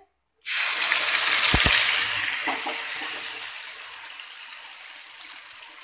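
Wet ginger and green chilli paste hitting hot mustard oil in a kadai with dried red chillies and cumin: a sudden loud sizzle that slowly dies down as the paste fries, with one dull knock about a second and a half in.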